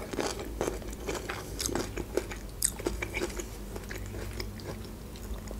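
Close-up chewing of a mouthful of fresh cucumber and tomato salad: crisp crunching and wet mouth clicks, coming irregularly.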